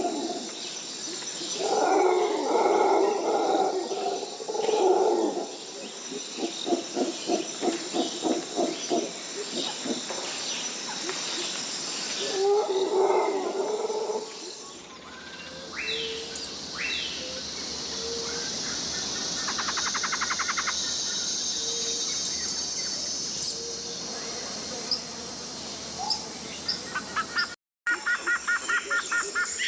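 Tropical rainforest ambience. In the first half, loud repeated low animal calls come in bouts, including a fast pulsing run. About halfway the scene changes to a steady high buzz of insects, dotted with short bird chirps and whistles, and near the end a fast trilling call.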